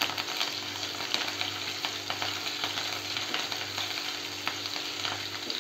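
Hot oil sizzling as mustard seeds, chana dal, urad dal, green chillies and curry leaves fry in a nonstick pan, with many small crackling pops, stirred with a silicone spatula.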